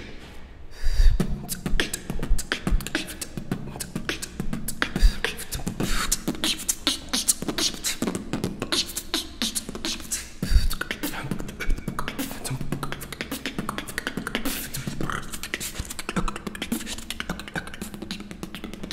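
Freestyle beatboxing: a fast, dense stream of vocal kick, snare and hi-hat sounds, with low pitched bass notes held for a second or so at times.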